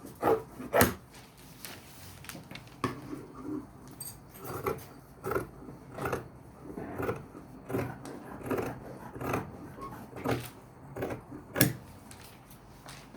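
Fabric shears cutting cloth, a run of short snips about every three-quarters of a second.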